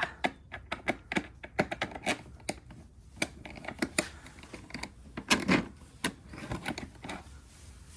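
Irregular light clicks and taps of plastic parts and hand tools as a Honda EU2200i generator's recoil starter and plastic cover are fitted back together, thickest in the first half.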